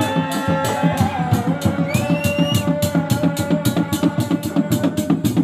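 Sundanese reak music: dog-dog drums beating a fast, even rhythm of several strokes a second, with a terompet (Sundanese shawm) holding a long, wavering melodic line over it.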